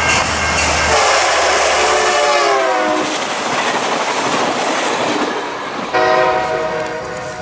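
Passenger train passing at speed behind a GMD F59PH diesel locomotive: its multi-chime air horn blows, the chord dropping in pitch as it goes by, over the rumble and rattle of the train on the rails. A horn chord starts again abruptly about six seconds in.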